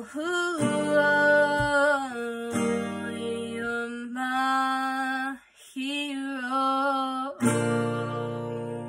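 A young woman singing solo with her own strummed acoustic guitar. Near the end a chord is strummed and rings on under a long held note.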